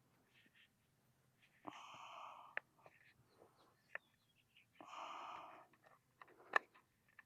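A plastic drip-tape fitting being tightened down by hand on the header line, giving sharp plastic clicks. Two drawn-out raspy sounds of about a second each come around two and five seconds in, and the sharpest click comes near the end.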